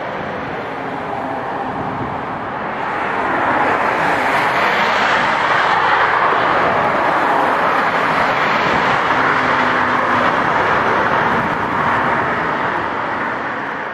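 Airbus A340-300 airliner climbing after takeoff, its four CFM56-5C turbofan engines making a steady jet roar. It grows louder about three seconds in as the aircraft passes, then holds.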